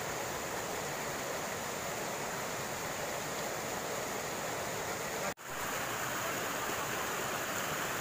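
Small jungle waterfall and stream rushing steadily over boulders, with a brief dropout about five seconds in.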